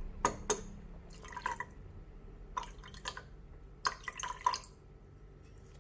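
Distilled water poured in small trickles from a plastic beaker into a glass beaker of liquid, dripping and splashing in about four short spurts while the beaker is topped up to 100 ml.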